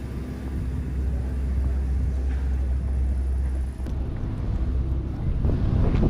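Low, steady rumble of chairlift station machinery. About four seconds in it gives way to a rougher, uneven rumble.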